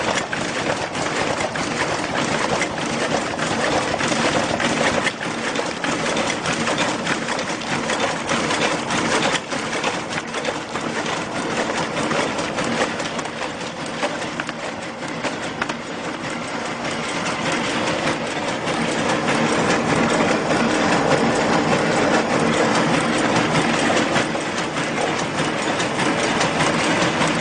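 Automatic horizontal cartoning machine running continuously while boxing bottles: a dense, rapid mechanical clatter over a steady hum, getting a little louder about two-thirds of the way through.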